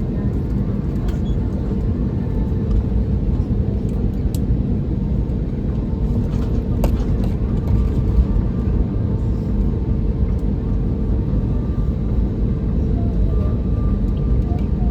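Airbus A320neo cabin noise while taxiing after landing: a steady low rumble from the engines at idle and the airframe rolling on the taxiway. A faint steady higher tone comes in about halfway, with a brief click shortly before it.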